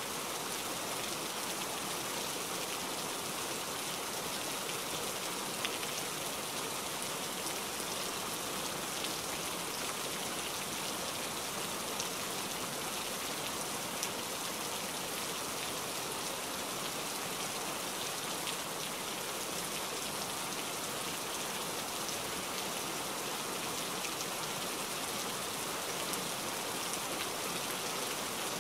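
Steady hiss of heavy rain, with a few faint ticks of drops.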